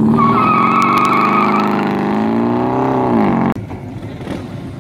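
Classic American car accelerating hard from a standstill: the engine note climbs steadily, with a tyre squeal over the first second and a half. About three and a half seconds in the sound cuts off abruptly, and a quieter engine sound follows.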